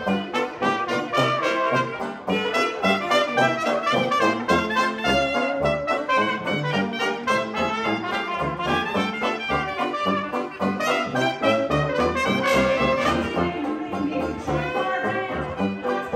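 Small jazz band playing an instrumental chorus, with trumpet, clarinet and saxophone playing together over a steady bass beat.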